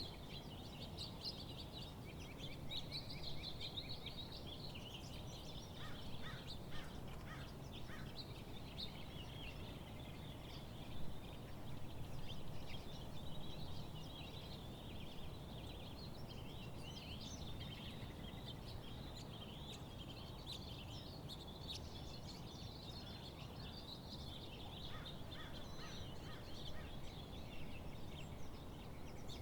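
A chorus of songbirds chirping and trilling, many short calls overlapping throughout, over a steady low background rumble.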